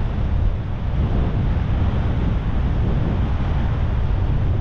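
Strong wind buffeting the microphone as a steady low rumble, with sea swell washing against the rocks underneath.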